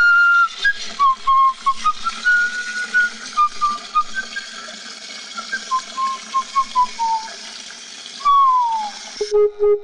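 A man whistling a meandering tune through his lips, mixing short notes with a few held ones and ending on a long downward slide, over steady film soundtrack hiss.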